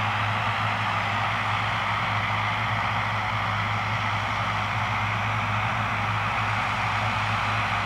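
ATR 42 turboprop airliner's twin engines running at low power as it taxis slowly: a steady hiss over a constant low propeller hum.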